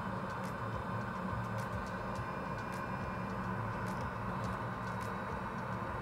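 Steady low hum and hiss of bench equipment, with faint, irregular ticks scattered through it.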